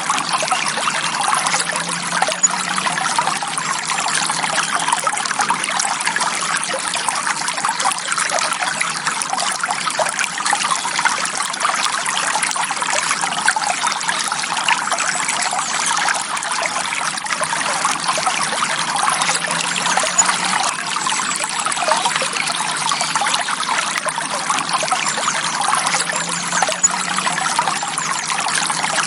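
Forest stream flowing gently: a steady, unbroken sound of running water.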